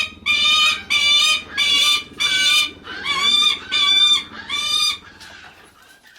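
Lanner falcon calling repeatedly: a string of about seven loud calls, each about half a second long, roughly one every 0.7 seconds, stopping about five seconds in. These are the bird's begging calls, made while it seeks attention from a familiar keeper.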